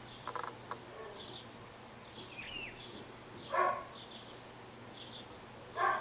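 Garden birds calling: two short, loud calls about two seconds apart, a little after the middle and at the very end, over faint, repeated high chirping. Just after the start comes a brief wing flutter from a wood pigeon landing at the bird table.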